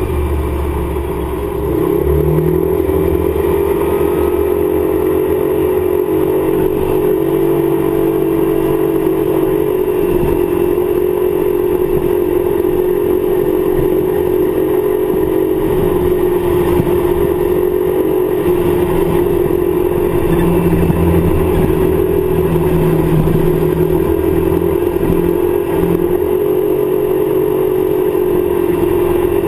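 Kymco Like motor scooter's single-cylinder four-stroke engine running at a steady cruising speed, with wind and road noise on the rear-mounted camera; the engine note rises slightly and gets louder about two seconds in.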